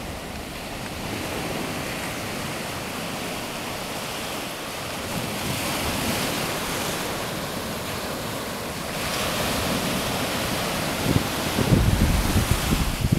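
Small waves breaking and washing up a sandy beach: a steady hiss of surf that swells twice. Near the end, wind buffets the microphone in gusts.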